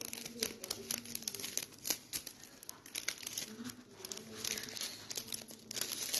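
Irregular crinkling and crackling close to the microphone, many small clicks in quick uneven succession, like plastic or paper being handled.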